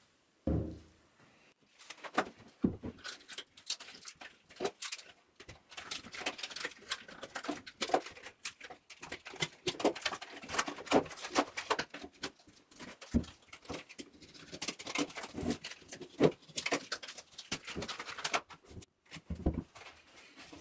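A resin-filled cylindrical mould set down on a wooden table with a thump, then its embossed plastic vacuum-seal bag peeled and torn off by hand: dense, irregular crinkling and crackling of plastic, with another soft thump near the end.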